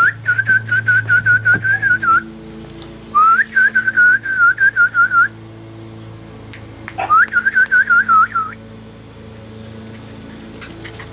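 Person whistling to call the chow chow puppies: three phrases of rapid, warbling whistles, each opening with an upward slide and then pulsing about five times a second.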